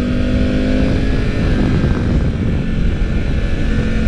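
Triumph Tiger 900 Rally Pro's three-cylinder engine running at a roughly steady pitch at road speed, under heavy wind rumble on the microphone.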